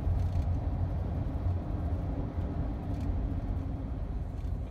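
Steady low rumble of a car heard from inside the cabin, engine and road noise with no pauses.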